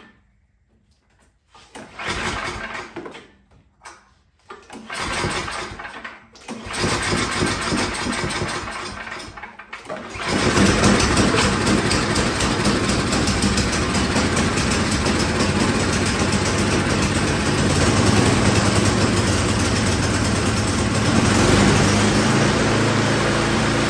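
Yard Machines snowblower engine being cranked in several short attempts, catching about ten seconds in and then running steadily.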